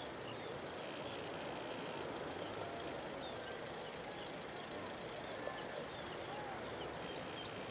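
Boeing 787 Dreamliner's jet engines running at low taxi thrust as the airliner rolls slowly along the runway, heard as a steady, even jet noise.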